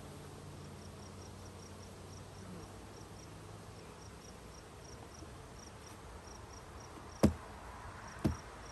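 Insects chirping in short high pulses, two or three a second, over a faint low hum of honeybees, then two sharp knocks about a second apart near the end.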